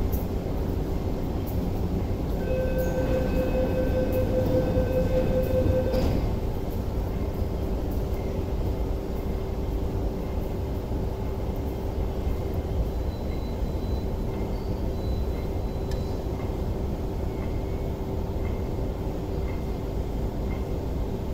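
Rapid door-closing warning beeps on an MTR West Rail Line train sound for about three and a half seconds and stop as the doors shut with a click. A steady rumble and a constant hum from the train standing at the underground platform run throughout.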